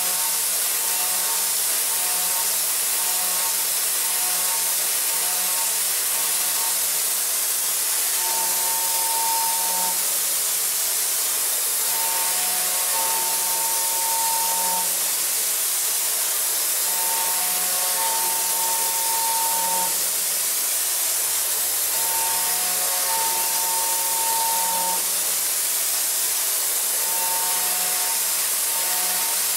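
DMG MORI CMX1100V vertical machining center high-speed milling a metal block with an end mill in a Sandvik hydraulic holder: a steady hiss of cutting and flying chips under a low hum. A pitched whine comes and goes in a repeating cycle every four to five seconds.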